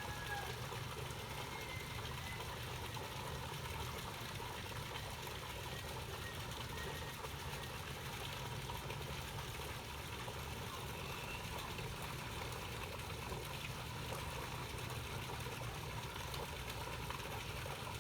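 Steady splashing rush of water from a fountain spout pouring into a fish pond, with a low steady hum underneath.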